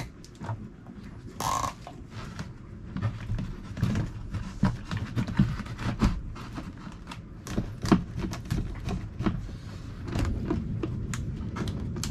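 A perforated metal cover panel being handled and fitted back into place in a cabinet: irregular knocks, clatters and scrapes of metal against the frame.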